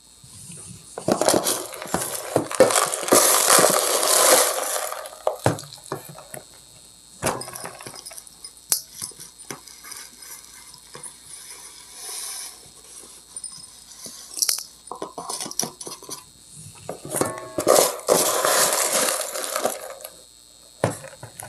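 Granular bonsai soil poured from a scoop into a glazed ceramic bonsai pot and scooped from a plastic tub, a gritty rattling hiss of small particles. There is one long pour about a second in and another near the end, with scattered small clicks and taps between.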